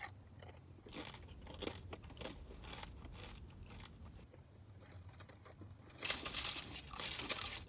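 Close-up crunchy chewing of fresh tortilla chips, a series of crisp bites and crunches. About six seconds in, a louder continuous rustle starts, like wrapper or paper being crinkled.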